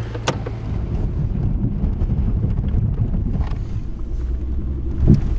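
Vehicle running, heard from inside the cab: a steady low rumble of engine and road noise. A sharp click comes just after the start, and a thump near the end.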